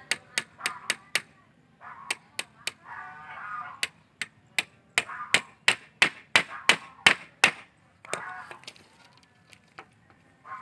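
A hammer driving nails into a wooden frame, sharp blows at about three a second in several runs, the longest and loudest run near the middle ending about three-quarters through. Honking calls sound in the gaps between the runs.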